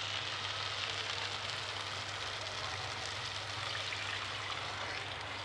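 Fried masala sizzling steadily in a hot non-stick kadhai while water is poured into it from a pot.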